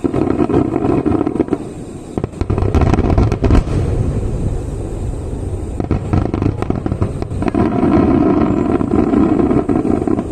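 Fireworks finale: a dense barrage of shell bursts booming and crackling over one another, heaviest about three seconds in and again toward the end.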